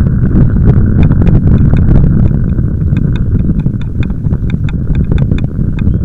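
Bicycle riding along a tarmac path, recorded from a camera on the bike: a loud, steady low rumble of tyres and wind on the microphone, with many short sharp clicks scattered through it.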